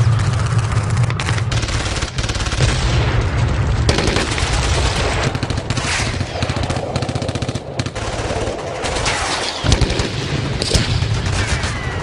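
Battle sound effect: continuous rapid gunfire with machine-gun bursts over a constant low rumble.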